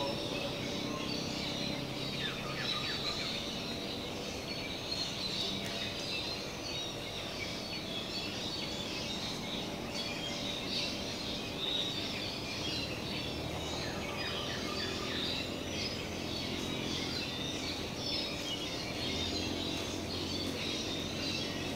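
Many small birds chirping and calling at once in a dense chorus of short, high notes, over a steady low background hum.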